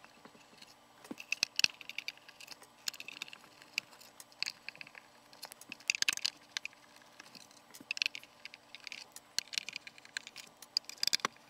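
Manual screwdriver backing screws out of the inside of a speaker cabinet: quiet, scratchy clicks and ticks in short clusters every second or two, with small knocks from the screws and tool.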